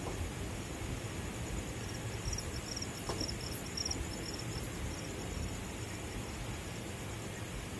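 Crickets chirping in rapid, evenly pulsed trills, loudest in the middle, over a steady low rumble and hiss.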